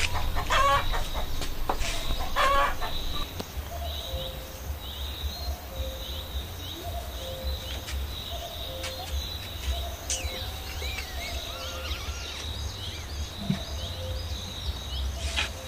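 Chickens calling loudly twice in the first three seconds, then fainter small-bird chirps over a low rumble of wind on the microphone. A short knock comes near the end as the pot's lid is set on.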